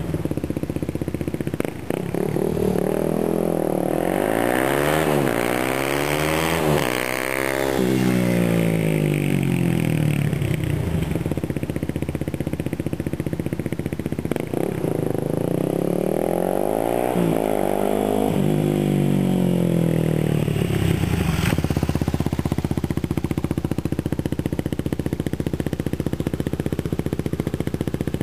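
2009 Yamaha WR250X's single-cylinder engine through a Delta Barrel 4 aftermarket exhaust. It revs up and down through two spells of acceleration, then runs at a steady note for the last stretch.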